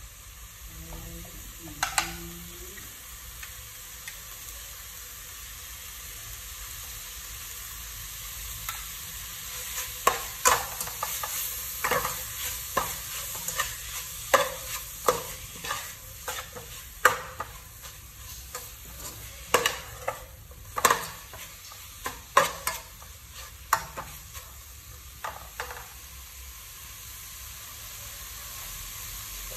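Spice paste frying with a steady sizzle in a metal pot while a metal ladle stirs it. The ladle scrapes and clinks against the pot once about two seconds in, then many times over the middle stretch.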